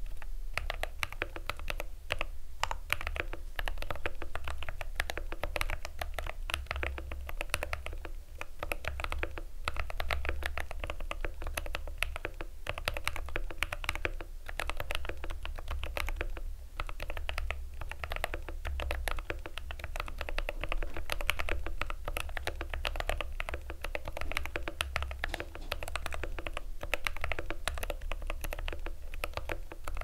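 Steady fast typing on a Drop CTRL High Profile mechanical keyboard fitted with silicone-greased Holy Koala tactile switches (Durock Koala housings, Halo stems) and PBT keycaps: a dense run of key clacks broken by a few short pauses.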